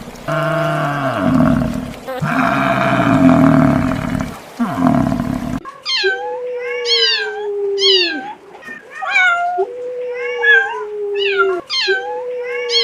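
A big cat roaring in deep, falling calls, then an abrupt cut about five and a half seconds in to a domestic cat meowing over and over, roughly one meow a second.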